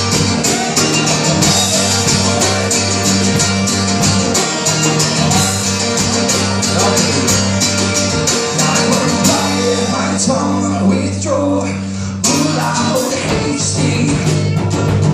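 Live band playing, with guitars and drums. The sound thins out briefly about ten seconds in and the full band comes back in a couple of seconds later.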